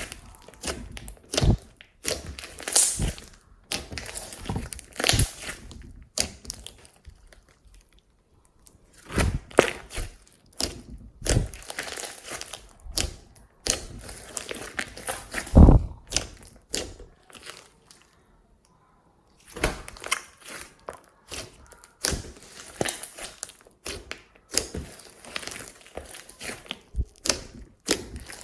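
Glossy slime being squished, folded and poked by hand, making irregular sticky pops, clicks and crackles, with one pause of about a second and a half about two-thirds of the way through.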